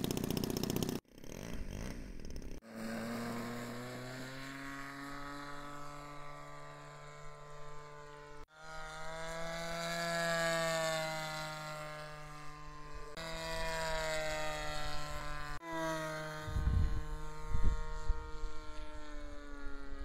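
Seagull Models Edge 540's DLE-20 single-cylinder two-stroke petrol engine, being run in, buzzing as the plane flies, its pitch rising and falling as it passes and changes throttle. The sound breaks off at several edits, and a low rumble breaks in for a few seconds near the end.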